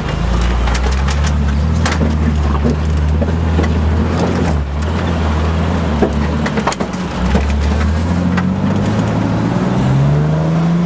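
Ford Bronco II's engine running at low revs while driving a rough off-road trail, with frequent knocks and rattles as the truck jolts over the ground. About eight seconds in, the engine note climbs steadily as it revs up.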